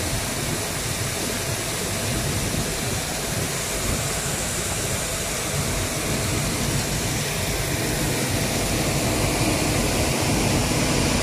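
Combine harvester running: a steady, even machine noise that grows slightly louder toward the end, with the rush of grain pouring from the unloading auger into a trailer mixed in near the end.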